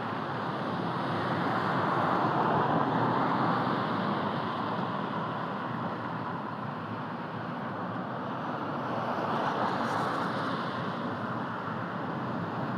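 Steady rushing background noise, without clicks or tones, that swells about two seconds in and again near ten seconds.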